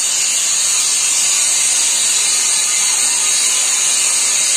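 Heavy rain falling steadily: an even hiss that does not change.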